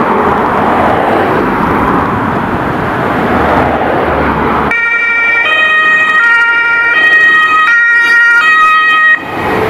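Mercedes Sprinter ambulance pulling out, first a noisy rumble of the vehicle, then about halfway through its German two-tone siren (Martinshorn) starts, alternating between two pitches roughly every three-quarters of a second. The siren stops shortly before the end.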